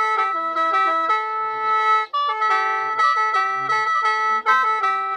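A khaen, the bamboo free-reed mouth organ, played in lai noi mode: a steady drone note under a moving melody of several notes at once. The sound dips briefly twice, about two seconds in and near the end.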